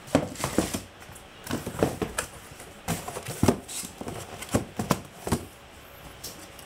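Cardboard shoebox and sneaker handled by hand: irregular rustles and light knocks as the shoe is lifted out and the lid is closed.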